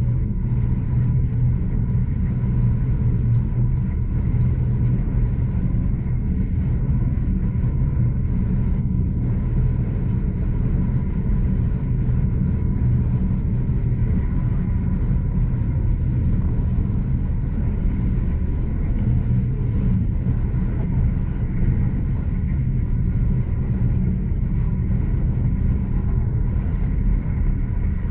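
Heritage railway carriage running along the track, heard from inside: a steady low rumble of wheels on rail with no breaks or changes.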